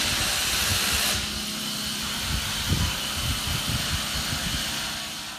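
Steady rushing noise with uneven low rumbles, fading out at the very end.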